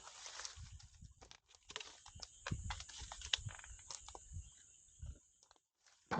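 Wood campfire crackling, with irregular sharp pops and soft low knocks; the sound drops out briefly near the end.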